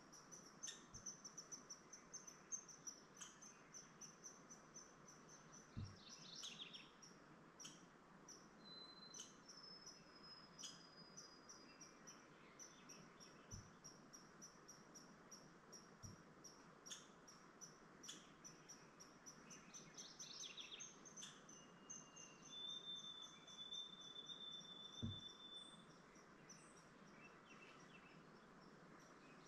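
Faint woodland birdsong and insect trilling: a fast, high, ticking trill throughout, with scattered whistled bird notes and one long held whistle about three-quarters of the way through. A few soft low knocks.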